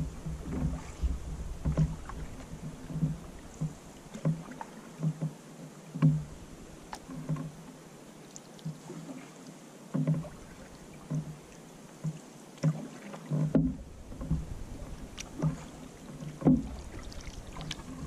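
Canoe paddle strokes: paddles dipping and pulling through the water, with a knock now and then from paddle against the hull, in an irregular rhythm of about one stroke a second.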